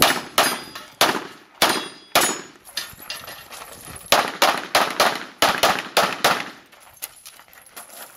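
Competition pistol shots fired during a USPSA stage run: a long string of sharp reports in quick succession, many of them in fast pairs, each with a short echo. The shots get quieter after about seven seconds.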